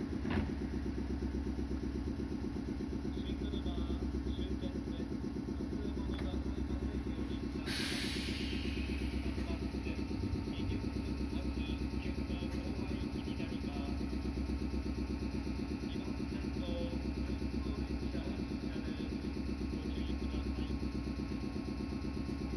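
Meitetsu 6000-series electric train standing at the platform, its onboard equipment running with a steady low hum and a fast rhythmic pulse. A short hiss about eight seconds in.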